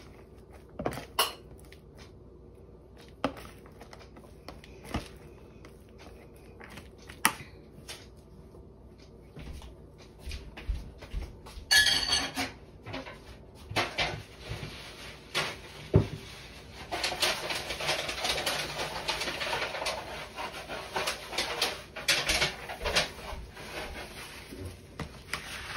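Sushi rice being mixed with a plastic rice paddle in a plastic container: scattered light taps and clicks at first, then denser scraping and rustling through the second half.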